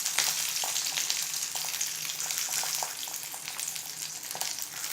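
Stuffed bell peppers sizzling in a little oil in a non-stick pan on low heat, a steady hiss with scattered crackles, as they are turned onto their sides to sear; a few light knocks of the peppers or a utensil against the pan.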